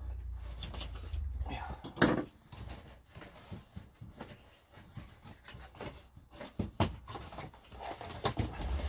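Handling noises from unboxing pigeons: a sharp knock about two seconds in, then scattered light clicks and knocks, over a low rumble in the first two seconds.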